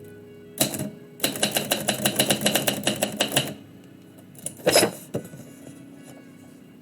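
Typewriter keys striking: one stroke, then a quick run of keystrokes for about two seconds, followed by a heavier clunk a little later.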